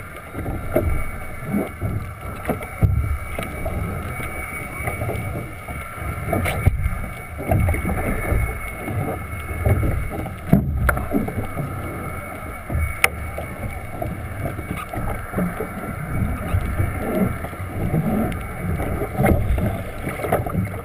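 Water rushing and splashing against a 29er sailing dinghy's hull under way, in irregular surges, with spray and wind buffeting the camera's microphone. Two sharp clicks about halfway through.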